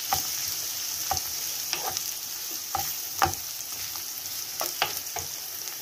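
Sliced onions sizzling in hot oil in a frying pan, stirred with a wooden spoon that knocks and scrapes against the pan at irregular moments, about once a second.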